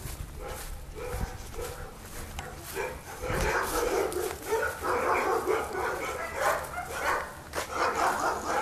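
Dogs barking, growing louder and more constant from about three seconds in.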